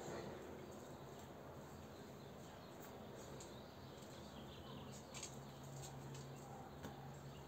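Faint outdoor background noise with a few brief high squeaks or ticks, and a faint steady low hum that comes in about halfway through.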